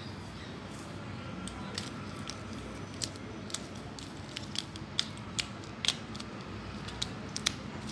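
Irregular light clicks and taps from small plastic parts and a cardboard kit box being handled, about fifteen over the stretch, scattered unevenly.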